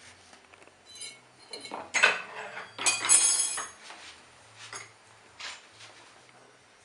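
Serving utensils clinking and scraping against a plate while food is plated: a string of sharp, ringing clinks, with the loudest clatters about two and three seconds in and a few lighter taps after.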